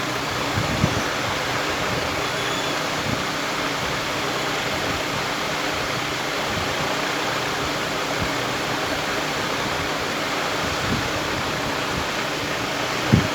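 Steady rushing background noise, even and unbroken, with a few faint soft thumps and a sharper knock near the end.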